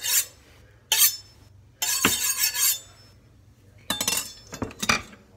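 Large kitchen knife drawn along a honing steel: about five ringing metal-on-metal scraping strokes roughly a second apart, one of them longer about two seconds in.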